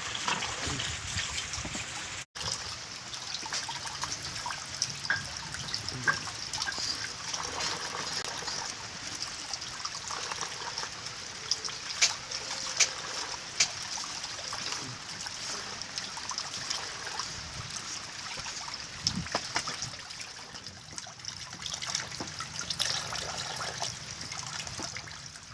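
Water trickling and running steadily, with small splashes and clicks scattered through it. There is a brief break about two seconds in.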